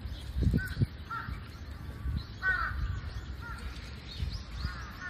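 Birds calling outdoors, short calls repeating roughly once a second, with a few low thumps on the microphone about half a second in.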